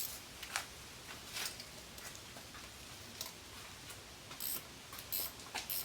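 Faint, irregular light clicks and short rasping clicks of a hand tool working on a motorcycle's front fork.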